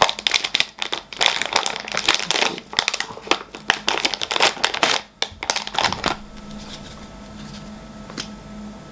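Plastic anti-static bag crinkling and rustling as it is handled and opened, in quick irregular crackles that stop about six seconds in. After that only a faint steady hum remains.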